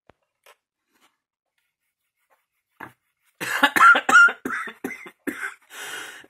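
A woman coughing hard, several coughs in quick succession, starting about halfway through after a near-silent stretch.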